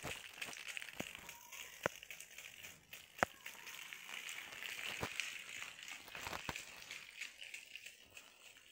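Footsteps crunching on gravel: a handful of separate crunches spread out over a steady background hiss.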